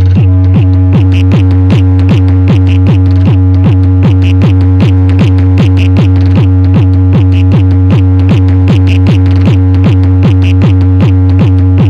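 Electronic dance music played very loud through a car audio system: a steady heavy bass note under a pounding kick drum, about three beats a second.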